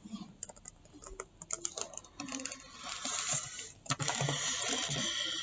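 Typing on a computer keyboard: scattered key clicks, with a steadier hiss in the second half.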